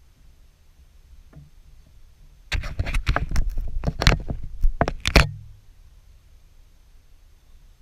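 A rapid run of knocks and rattling on the clear plastic canoe, lasting about three seconds and starting about two and a half seconds in.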